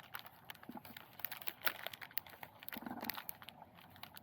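Irregular crinkling and small clicks of plastic being handled close by: soft-plastic jig baits and their packaging.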